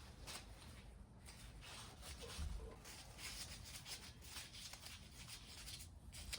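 Faint, irregular clicks and scraping of hand tools and metal parts being worked while the rocker arm assembly is unbolted from a Kubota V2203 diesel's cylinder head.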